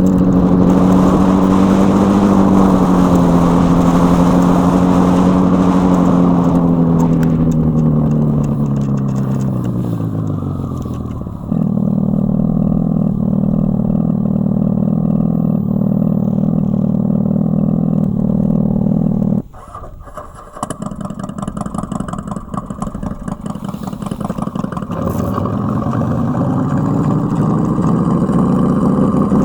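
Synthetic engine sound from the EUC World AVAS app, played through the Kingsong 16X electric unicycle's built-in speakers. The engine note holds steady, falls in pitch as if winding down after about six seconds, then gives way to a steadier idling note. This cuts off suddenly a little past halfway and starts rising in pitch again near the end, like an engine revving up.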